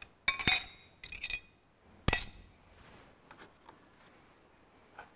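Steel spanners clinking against each other and the cast-iron engine block as they are put down: three ringing metallic clinks in the first two and a half seconds, the last the loudest, followed by a few faint taps.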